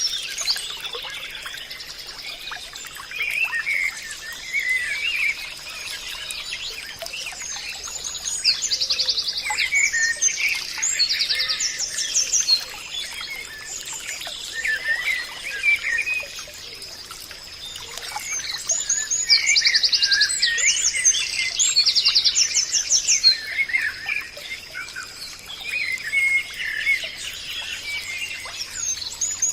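Several birds singing and chirping at once, with short, rapid trills repeating every few seconds. A thin, steady high-pitched tone runs underneath.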